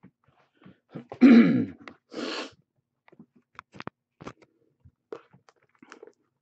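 A person clears their throat with a loud cough about a second in, falling in pitch, then a short breathy burst. Faint clicks and taps follow as hands handle cardboard card boxes on the desk.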